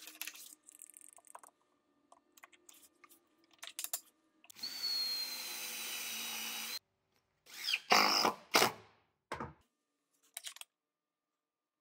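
A DeWalt cordless driver runs for about two seconds, driving a screw into wood, with a thin high whine over it. Small clicks and knocks of handling come before it, and a burst of louder knocks and clatter follows.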